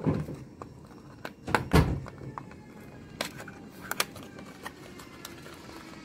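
Handling noise from a MoYu speed cube's small cardboard box: a thump at the start, then a louder knock and rustle about a second and a half in, then a few light taps and clicks.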